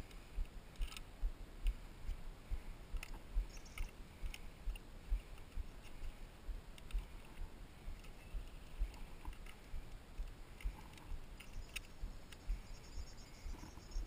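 Mountain bike rolling over a rough dirt road: low, irregular thumps several times a second as the bike jolts over the surface, with occasional sharp clicks and rattles from the bike.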